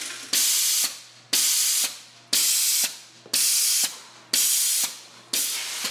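Meheen bottle filler running its auto-clean cycle: a sharp burst of spraying hiss about once a second, each cutting in suddenly and then fading away, six in a row.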